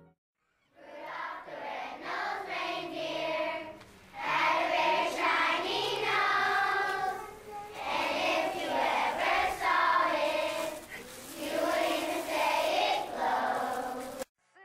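Large children's choir singing. It starts about a second in and breaks off just before the end.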